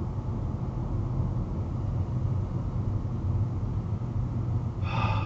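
Steady low rumble of a car driving slowly on a street, heard from inside the cabin through a dashcam's microphone. A short, high pitched tone sounds near the end.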